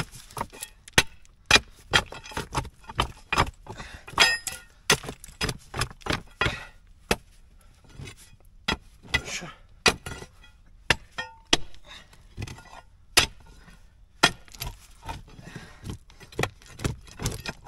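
Pickaxe striking stony ground and loose rocks: repeated sharp metal-on-stone strikes at an uneven pace of one or two a second, some with a brief metallic ring, and stones clattering.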